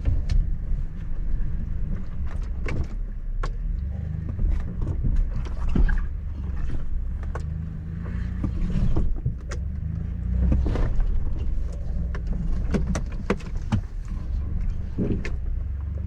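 Four-wheel-drive vehicle crawling slowly up a rocky riverbed, its engine running low and steady. Frequent sharp knocks, clunks and creaks come from the tyres climbing over rocks and from the suspension and body working.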